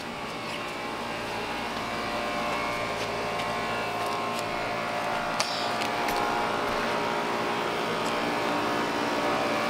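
Steady mechanical drone made of several fixed tones, like a running engine or motor, growing gradually louder.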